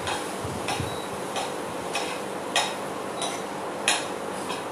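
A spoon stirring caramelizing banana slices in a frying pan, knocking against the pan in a steady rhythm about every two-thirds of a second.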